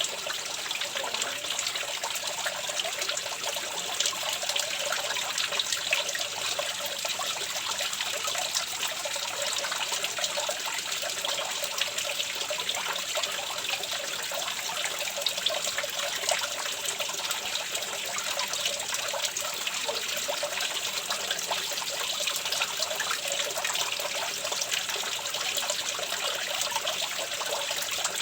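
Running water trickling steadily, with a dense patter of small splashes over an even rush.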